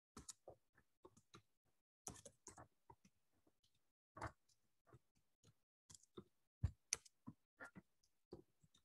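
Faint typing on a computer keyboard: irregular keystroke clicks, a few a second, with short pauses between words.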